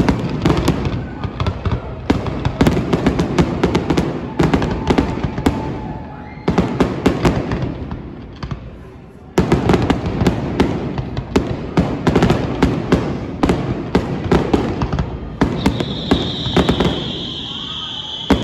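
Fireworks going off in rapid succession: dense crackling and bangs, with short lulls about six seconds in and again around eight to nine seconds. Near the end a steady high-pitched whistle sets in and keeps going.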